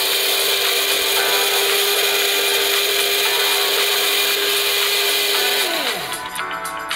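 Electric grinder running loaded, with a steady whine as it grinds dry chickpeas to powder. Near the end it is switched off and the whine drops in pitch as the blades spin down.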